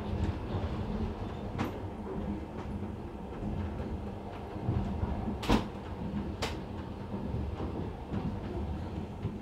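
Steady low rumble of a long-distance passenger train running along the track, heard from inside the carriage. A few sharp knocks stand out, the loudest just past halfway.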